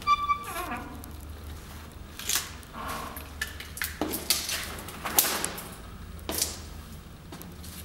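A short high squeak at the start, then scattered sharp knocks and clicks a second or so apart, over a low steady hum.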